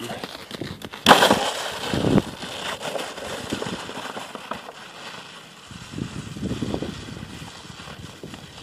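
A plastic saucer sled slaps down onto crusty snow about a second in as a running child jumps onto it, then scrapes across the hard snow crust with a hiss that fades over about a second as it slides away downhill.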